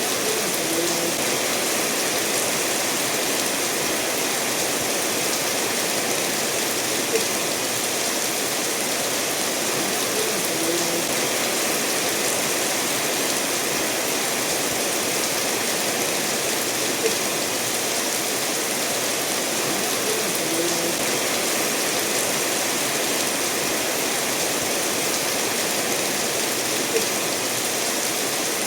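Steady rainfall mixed with a stream running over stones, an even rushing hiss throughout. A few short, louder taps stand out about every ten seconds.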